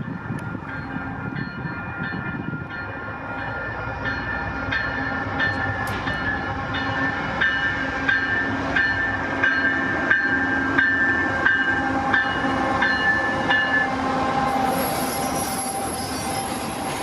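CPKC freight train approaching and passing, with steady tones and a regular clanging about three times every two seconds. A high wheel squeal sets in near the end.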